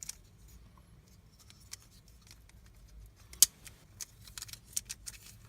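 Small metal clicks and snaps from a Gerber Center-Drive multi-tool as its fold-out implements are handled and locked in place. A single sharp click about three and a half seconds in is the loudest, followed by a run of lighter clicks.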